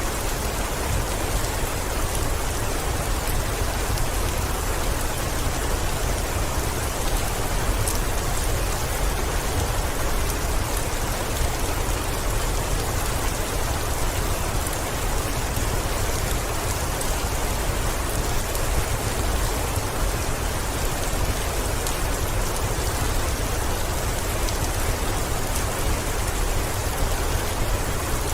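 Heavy rain falling steadily on a window, an even hiss with a constant low rumble underneath.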